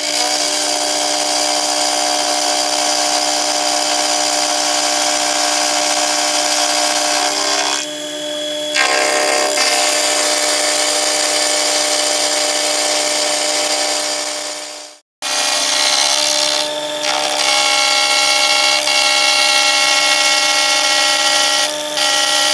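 Sherline milling machine's spindle running with an end mill taking a facing cut across a 4140 pre-hard steel block: a steady whine with several held tones. It cuts out abruptly about 15 seconds in and resumes a moment later.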